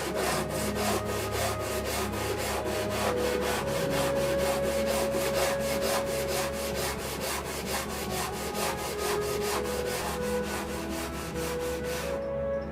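Hand sanding on wood during guitar repair: quick, even back-and-forth strokes that stop near the end, with background music under them.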